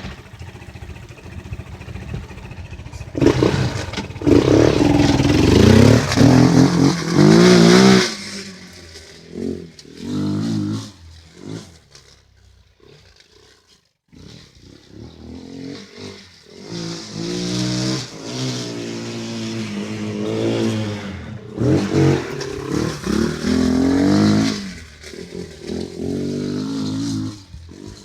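ATV engine revving up and down repeatedly, loudest in a long run of revs early on and again through the second half, with a brief lull near the middle.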